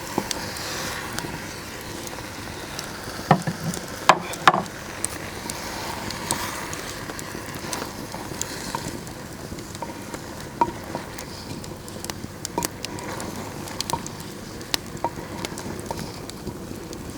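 Aubergine and courgettes sizzling in oil in a clay pot over an open fire, with scattered small crackles throughout and a few louder knocks about three to four and a half seconds in.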